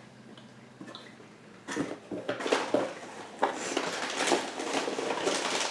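Crinkling and crackling of a paper-wrapped chewy candy being unwrapped, in quick irregular bursts that start about a second and a half in.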